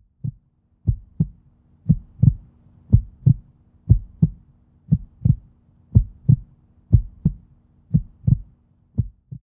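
A heartbeat: low double thumps (lub-dub) about once a second, ten in a row over a faint steady hum, stopping near the end.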